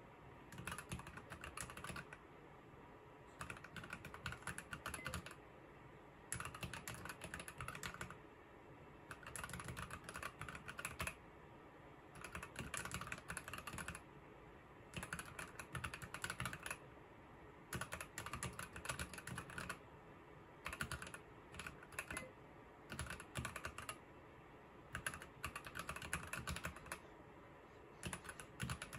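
Fast typing on a Keychron V1 mechanical keyboard: quick runs of key clicks, each a second or two long, with short pauses between words.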